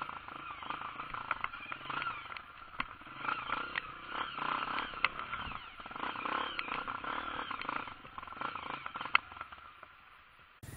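Honda dirt bike's single-cylinder four-stroke engine running at low throttle over rough ground, its revs rising and falling, with frequent sharp clicks and knocks from the bike jolting over rocks, two of them loudest about five and nine seconds in.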